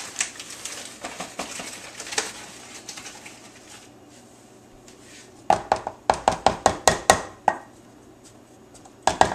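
Soft rustling of a plastic zip-top bag as flour is scooped out. Then, about halfway through, a quick run of about ten sharp taps, a plastic measuring cup knocked against a plastic tub to shake the flour out, and a last pair of taps near the end.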